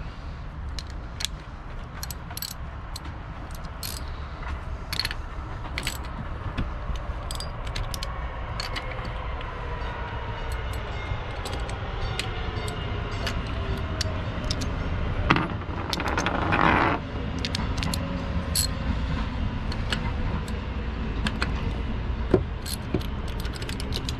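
Ratchet wrench clicking in short runs, with metal tools clinking, as spark plugs are worked out of an outboard motor's cylinder head, over a steady low rumble. A long falling tone passes in the background midway, and a brief louder scraping burst comes about sixteen seconds in.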